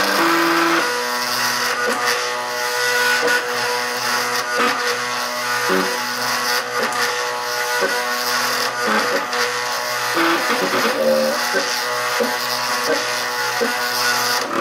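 MakerBot Cupcake 3D printer's stepper motors whining as the build platform and print head trace out a layer. The tone holds a steady pitch for a moment, then jumps to a new one with each change of speed and direction.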